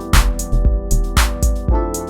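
Background music: an electronic track with sustained chords over a steady drum beat, a sharp hit about once a second.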